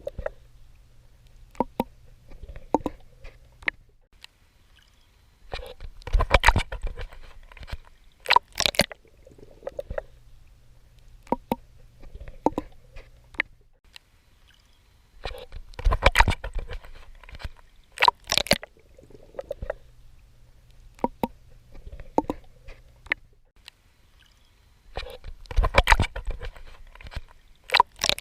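Swimming in sea water: strokes of splashing and sloshing water, with small clicks and pops in between. The same pattern comes round about every ten seconds.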